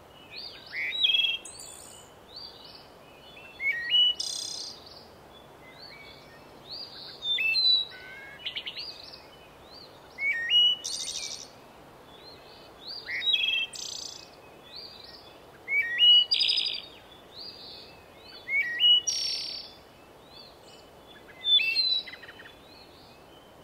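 Birdsong: short phrases of chirps and whistles, repeating about every two to three seconds over a faint steady hiss.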